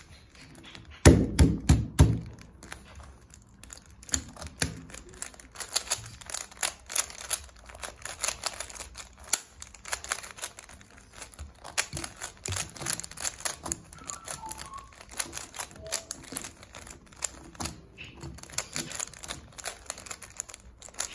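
Twisty puzzles being scrambled by hand, a megaminx and a cube turned rapidly, giving a dense run of small plastic clicks and clacks. A cluster of heavier knocks about a second in is the loudest part.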